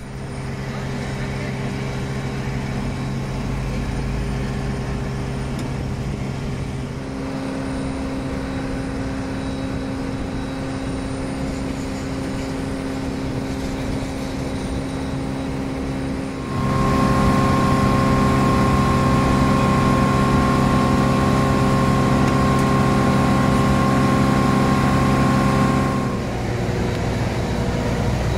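Steady mechanical drone of airliner ground noise on an airport apron: a hum made of several fixed tones. It shifts in pitch a few seconds in, grows louder about halfway through and drops back near the end.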